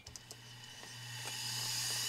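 Porting grinder with a mounted stone starting up and running, a steady hum under a rising whine that grows louder over the two seconds.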